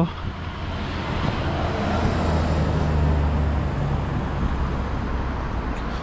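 A car passing on a nearby road, its tyre and engine noise building to a peak about halfway through and then easing off over a steady low rumble.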